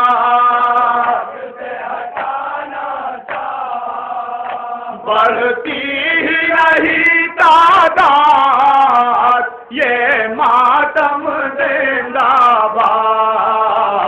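A man chanting a Shia mourning lament (noha) into a microphone, in long, wavering held notes. It is loud, drops to a quieter passage about a second in, and comes back loud about five seconds in.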